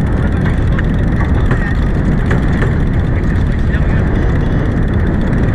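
Steady rush of wind buffeting the microphone, mixed with water rushing past the hull of a sailboat under way, with a few faint ticks.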